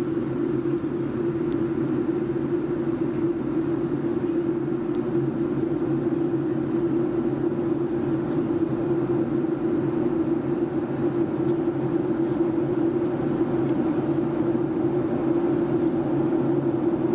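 Steady in-flight cabin drone of a Boeing 757-236 with Rolls-Royce RB211 engines: engine and airflow noise carrying a constant low hum.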